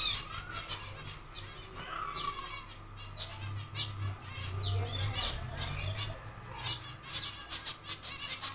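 Zebra finches calling in an aviary colony: a steady run of short, high chirps, many falling in pitch.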